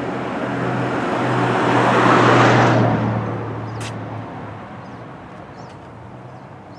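A car passing by on the street: its tyre and engine noise swells to a peak about two seconds in, then fades away. A single sharp click comes near four seconds in.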